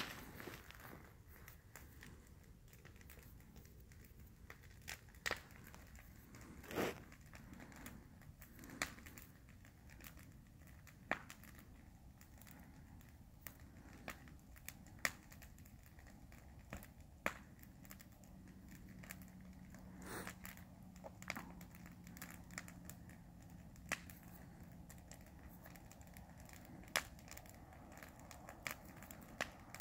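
Wood campfire burning, with sharp pops and cracks at irregular intervals, one every second or few, over a faint background.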